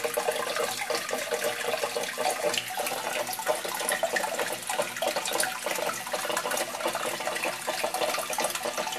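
Water trickling and splashing steadily in a turtle tank.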